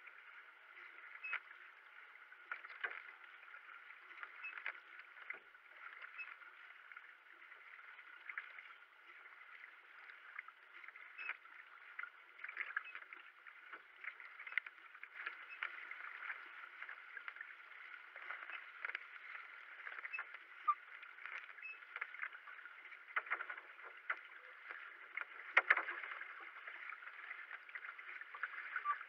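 Paddling a racing kayak: steady water noise along the hull, with a short splash from the paddle blade at each stroke, about one a second. Near the end one splash is louder.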